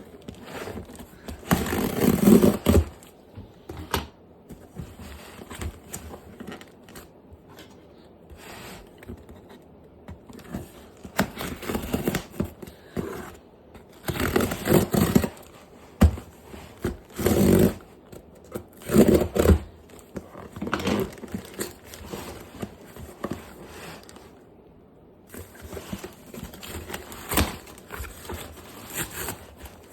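Packaging of a model locomotive being handled and opened: irregular bouts of scraping, rustling and crinkling, with a few louder rubbing bursts.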